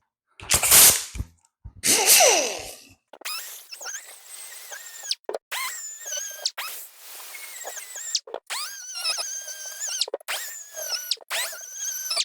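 Power tool with a wire wheel working on a steel brake spindle: two short bursts of the tool spinning, the second winding down in pitch, then a long scratchy scrubbing against the metal with a whine that wavers as pressure changes, broken by brief pauses.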